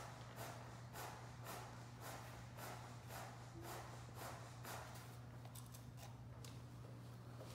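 CPR training manikin's chest being pushed down in compressions, a soft noisy stroke about twice a second, the rate taught for CPR. The strokes stop about five seconds in, and a few light clicks follow as the manikin's head is handled. A steady low hum lies under it throughout.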